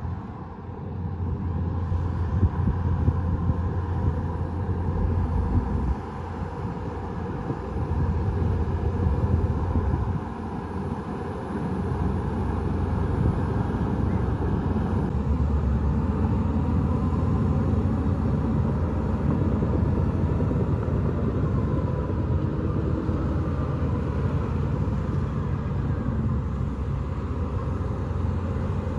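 Bulldozer's diesel engine running as it works, a steady low rumble that eases off briefly twice and then holds steady.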